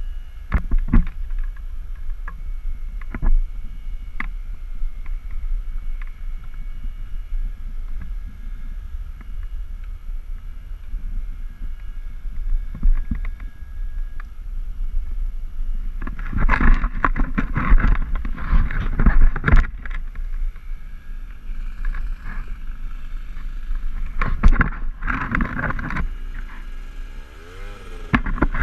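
Wind buffeting an outdoor camera microphone, a steady low rumble with a few knocks and louder gusts. Near the end a quad's engine comes in, its pitch rising and falling as it approaches.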